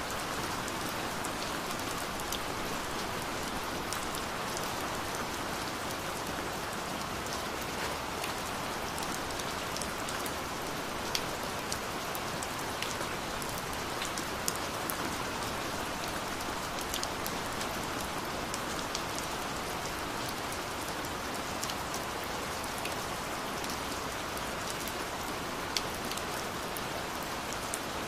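Gentle rain falling steadily, with occasional sharper ticks of single drops.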